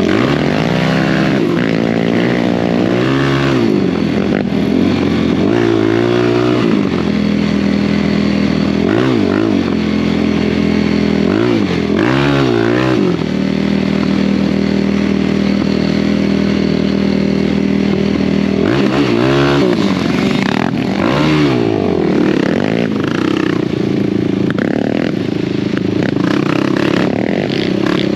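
ATV engine running and revving up and down again and again as the throttle is worked, with a steady drone between the revs.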